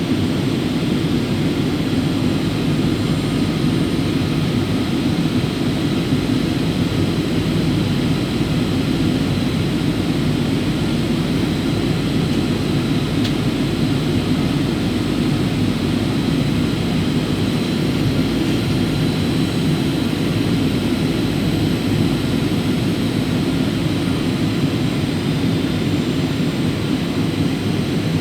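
Steady cabin noise of a Boeing 737 in flight: engine and airflow noise as a constant low drone with hiss above it and a faint high whine.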